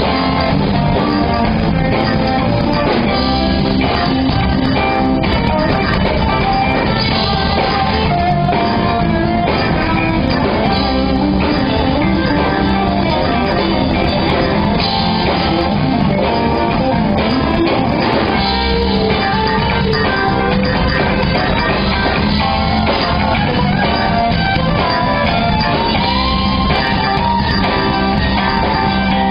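A rock band playing live: electric guitars over bass and drum kit, loud and steady.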